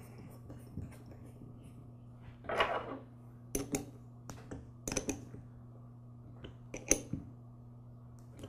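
Scattered light metal clicks and taps as a lawn mower carburetor's float bowl is set in place and its bowl screw fitted, about half a dozen knocks over a steady low hum.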